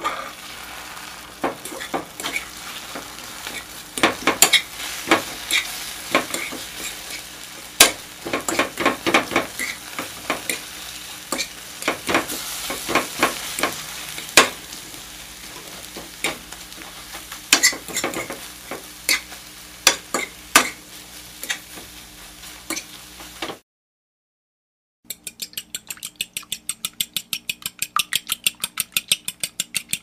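Eggs frying in a hot pan: steady sizzling with frequent sharp crackles and pops. It stops a few seconds before the end, and after a short silence a fast, even run of clicks begins.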